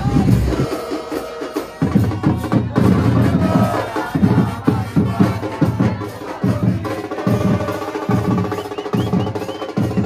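A terrace drum band of bass drums (bombos) and snare drums beating a steady rhythm, about two beats a second, with drum rolls. A sustained tone joins over the drums about seven seconds in.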